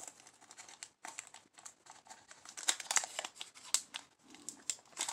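A Pokémon XY Roaring Skies booster pack's foil wrapper being crinkled and torn open by hand: a run of irregular, sharp crackles, busiest midway.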